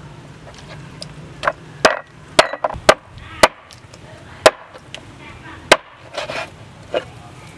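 Large knife chopping raw chicken into pieces on a wooden cutting board: about ten sharp, irregular knocks of the blade striking the board.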